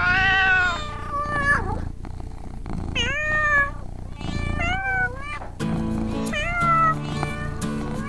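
Kittens meowing: about four separate drawn-out meows, each rising and falling in pitch. Background music comes in about halfway through.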